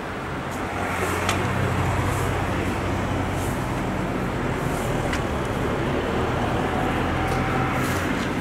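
ChS7 DC electric passenger locomotive approaching with its train of coaches: a steady low hum over the rumble of wheels on rails, growing louder about a second in, with a few sharp clicks.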